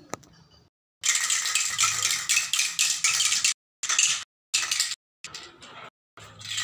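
Aerosol spray paint can being shaken, its mixing ball rattling in quick strokes. There is a run of about two and a half seconds, then shorter bursts that stop abruptly.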